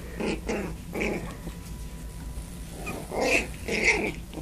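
Havanese puppies playing together, with small growls and a few short high-pitched squeaks, the loudest of them about three to four seconds in.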